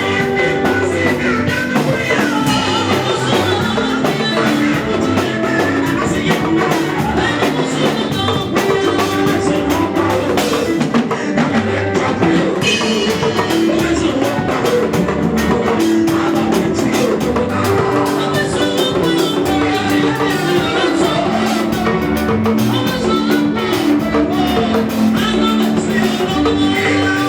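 Church worship music from a band with a drum kit, playing steadily with singing.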